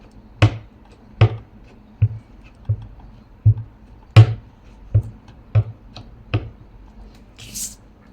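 Nine dull taps on a tabletop at an even pace, about one every three-quarters of a second, as a rubber stamp and ink pad are knocked together during stamping. A short paper rustle follows near the end.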